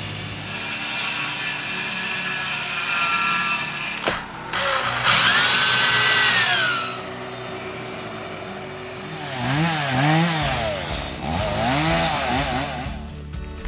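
Power tools in turn: an electric drill runs up to speed and winds down as it bores into plywood flooring, the loudest sound. Then a chainsaw revs up and down repeatedly while cutting up a felled tree.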